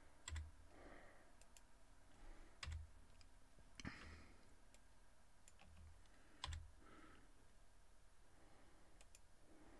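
A handful of faint computer mouse and keyboard clicks, spaced irregularly, as shapes are selected and deleted; otherwise near silence.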